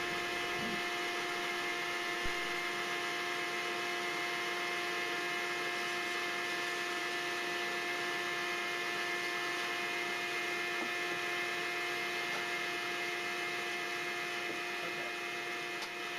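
Steady electrical hum with a faint hiss underneath, and a single small click about two seconds in.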